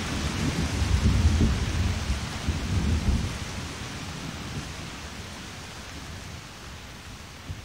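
Recorded thunderstorm: rolling thunder over steady rain in the first three seconds, then the rain slowly fading out.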